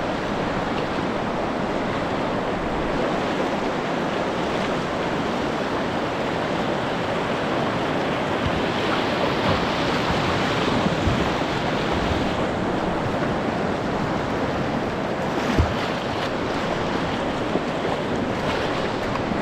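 River water rushing over a shallow, rocky stretch around a kayak in a steady noise, with wind buffeting the microphone. A light knock comes about two-thirds of the way through.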